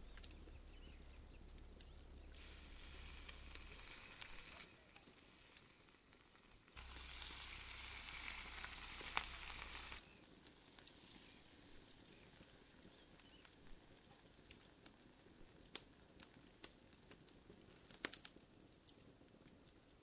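Burger bun halves toasting face down in a greasy pan on a campfire grill, sizzling. It comes in two stretches, the second louder and cut off abruptly, followed by faint scattered clicks.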